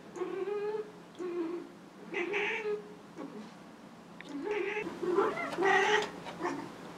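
Domestic cat in heat yowling over and over, drawn-out wavering calls about once a second, growing louder near the end.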